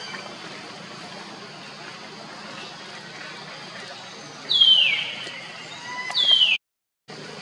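A baby long-tailed macaque screaming twice, each a high, loud, falling screech lasting about half a second. The second scream cuts off abruptly.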